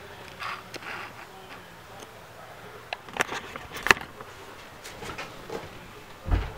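Scattered clicks and rustles of a handheld camera being handled and repositioned, with a few sharper clicks about three to four seconds in. A single low thump comes near the end, as someone walks away across the floor.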